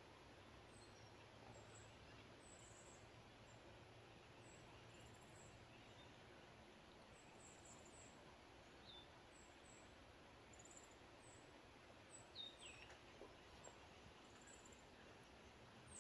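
Near silence with faint, very high-pitched bird chirps scattered irregularly throughout. A louder, downward-sliding call comes a little past twelve seconds in, all over a low, steady hiss.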